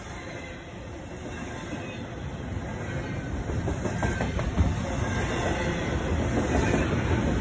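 Double-stack intermodal container train passing at speed: the steady rumble and rattle of the well cars' wheels on the rails, growing steadily louder, with a faint high wheel squeal and a few sharp clacks about four seconds in.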